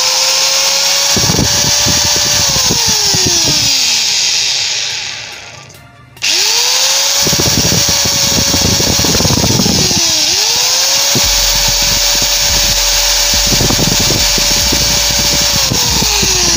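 Small (baby) angle grinder test-run after a new 629 bearing and carbon brushes are fitted: it winds down about 3 s in, starts again about 6 s in with a rising whine, spins down, restarts straight away and runs steadily, then winds down near the end. Irregular crackle comes through while it runs.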